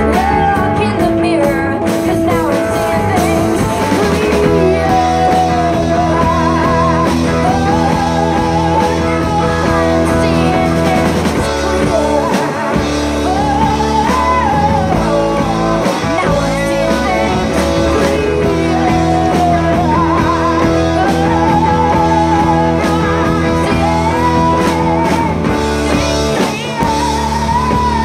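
Live rock band playing through a PA: guitars and drums under a woman singing lead, her melody lines wavering with vibrato.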